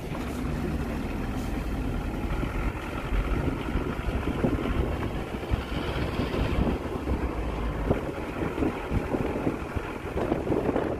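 Steady engine and road rumble of a moving vehicle.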